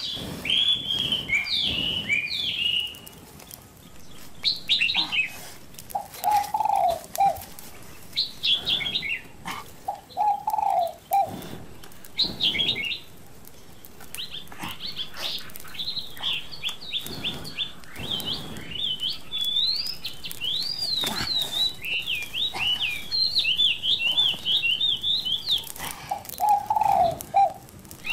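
Songbirds chirping and twittering: high, quick notes that rise and fall, in bursts at first and almost continuous in the second half. A few short, lower calls sound in between, and sharp clicks are scattered throughout.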